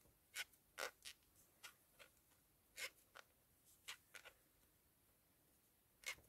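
Faint handling sounds of crocheting plush yarn with a metal crochet hook: soft irregular clicks and scratches, with a quiet stretch shortly before the end.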